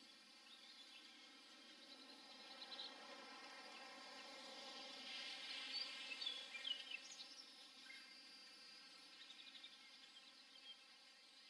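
Faint outdoor ambience: a soft hiss that swells and fades in the middle, with scattered short high-pitched bird chirps, a few clustered near the middle.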